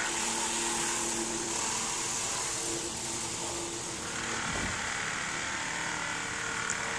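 Steady hiss with a faint, even mechanical hum underneath.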